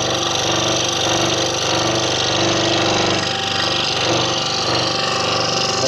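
Scroll saw running steadily, its reciprocating blade cutting through a wooden jigsaw puzzle board, with a steady motor hum under the hiss of the blade in the wood.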